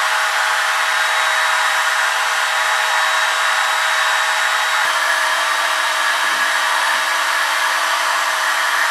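Trim router running at full speed, a steady, loud motor whine with a faint added tone partway through.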